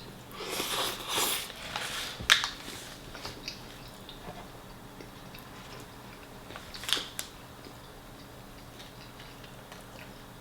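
Close-miked eating of a chicken kebab wrap. A noisy bite lasts about a second near the start, then chewing follows, broken by two sharp clicks at about two and seven seconds in.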